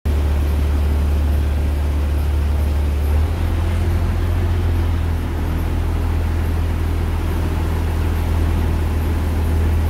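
River boat's engine running with a steady low drone, its tone shifting slightly about three seconds in, under the hiss of heavy rain falling on the river and deck.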